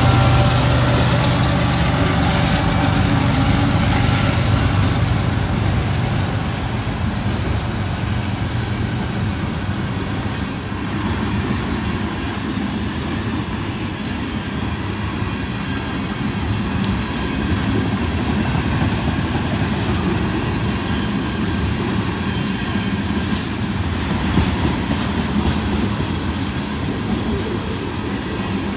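Freight train passing close by: diesel locomotive engines rumble loudly at first and fade over the first several seconds, leaving the steady rumble and clickety-clack of tank cars' wheels rolling over the rails, with occasional sharp clanks.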